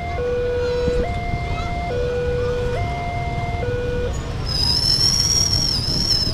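Railroad level-crossing warning alarm sounding an electronic two-tone signal, a lower and a higher tone alternating about every second. It stops about four seconds in as the barriers lift and the crossing clears. Motorcycle engines rumble underneath as the traffic moves off, and a high, thin, wavering squeal sounds for about two seconds near the end.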